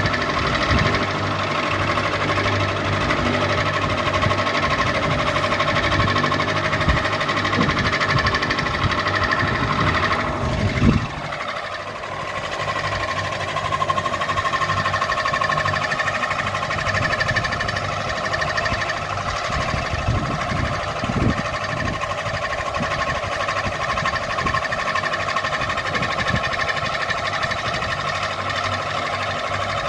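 Ceiling fan running with a steady hum and a rattling, knocking clatter. About eleven seconds in there is a brief louder knock, and after it the rattle is lighter.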